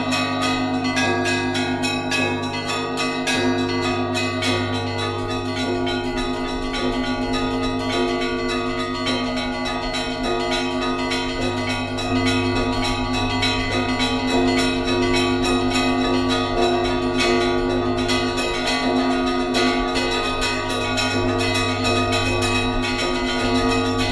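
Church bells ringing together: a quick, continuous run of strikes on smaller bells over the long, deep ring of large bells, getting somewhat louder about halfway through.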